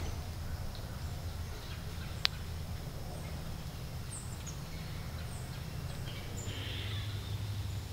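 Woodland ambience: faint, short high bird chirps over a low, steady rumble, with a single sharp click about two seconds in.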